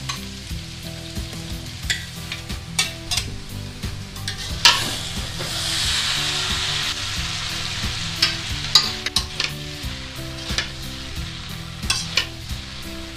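Cooked rice and vegetables stir-frying in a metal wok: a steady sizzle, louder about halfway through, broken by frequent clinks and scrapes of a metal spatula stirring and tossing the rice against the pan.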